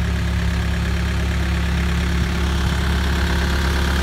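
Forklift engine running steadily at idle, close by.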